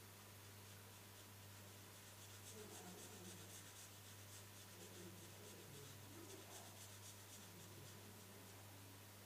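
Faint scratching of a marker pen on paper in quick, repeated strokes as an area is filled in, over a steady low electrical hum.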